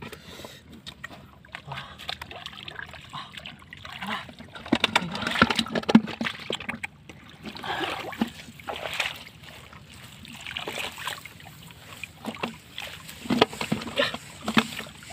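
Shallow muddy water splashing and sloshing in irregular bursts as a woven bamboo scoop basket is dipped and dragged through it, loudest around five to six seconds in and again around thirteen to fourteen seconds in.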